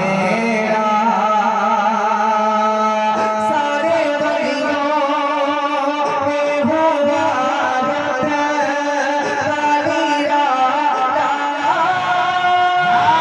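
A voice singing a naat in a long, wordless melodic passage, with wavering held notes.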